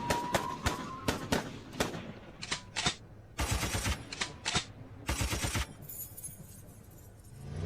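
A scatter of sharp bangs and clicks, dense in the first two seconds, with two short hissing bursts in the middle.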